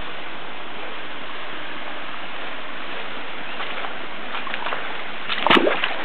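Steady rushing of stream water, with a brief louder noise near the end.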